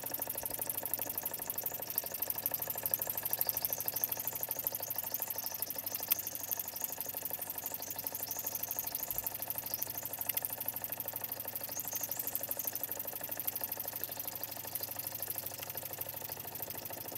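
Parkinson toy steam engine running steadily at speed, its single cylinder giving a rapid, even chuffing as the flywheel turns.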